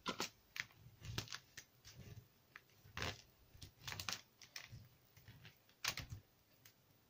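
Paper craftwork being handled on a table: irregular taps, clicks and paper rustles as a white bone folder is pressed along a paper band and set down, with a louder knock about three seconds in and another near six seconds.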